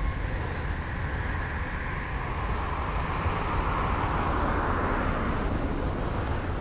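Freight train of autorack cars rolling past, a steady low rumble with a higher rushing rail noise that swells in the middle and eases near the end.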